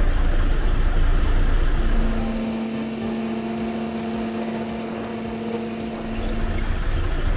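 Airboat's 200-horsepower engine and propeller running under way: a loud, steady noise with a low rumble that eases slightly about two seconds in, leaving a steady hum.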